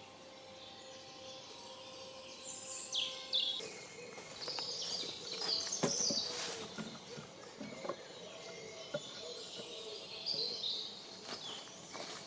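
Woodland birds singing, several short phrases throughout. From about four seconds in, light wooden knocks and rustling as chunks of wood are handled and set down on lashed wooden poles.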